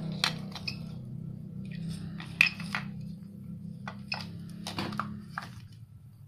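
Sharp plastic clicks and knocks as the plastic case of a small LED product counter is handled and set down, over a low steady hum that stops about five seconds in.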